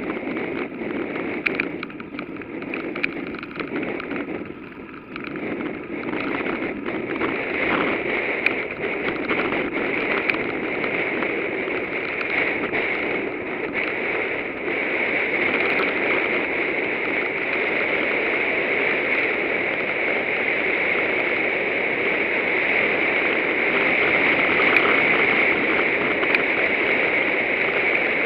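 Steady rushing noise of riding a bicycle: tyres rolling on the road and wind on the microphone. It has small clicks and rattles in the first few seconds, then turns into a smoother, slightly louder hiss from about halfway.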